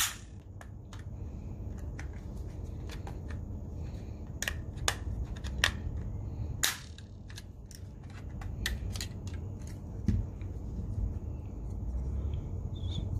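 Plastic snap-fit clips of a DJI Spark remote controller's shell clicking and snapping as the casing is pried apart with a metal pick. There are many sharp snaps with quieter ticks between, the loudest at the very start and at about five and a half and seven seconds in.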